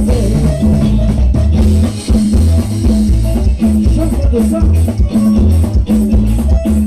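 Live band playing upbeat dance music with a steady beat: drum kit, bass guitar, electric guitar and timbales with shaker-like percussion, over a strong bass line.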